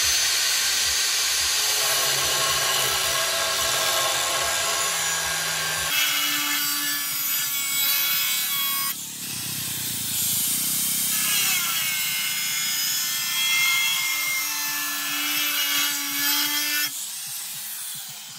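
Electric angle grinder running and grinding the steel of a rusty knife blade with an abrasive disc: a loud, continuous rasping hiss over the motor's whine. The sound changes abruptly about six seconds in, again about nine seconds in, and near the end.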